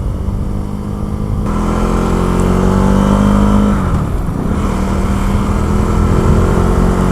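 KTM Duke 390's single-cylinder engine under way, its pitch climbing slowly as it pulls. About four seconds in the pitch dips briefly, then it runs steady again.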